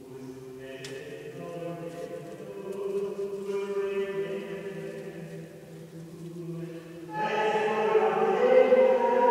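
Voices singing liturgical chant in a reverberant stone church, holding long notes. About seven seconds in, the singing swells much louder and fuller.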